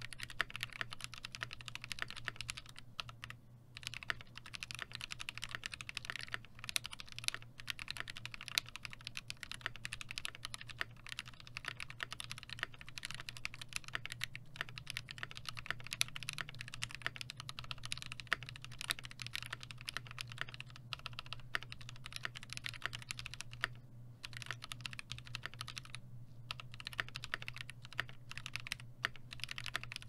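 Fast, continuous typing on a KBD67 MKii mechanical keyboard with NovelKeys Cream linear switches on a brass plate and GMK keycaps: a dense stream of key clacks with a few brief pauses. The switches are broken in and sound fairly even in pitch and tone.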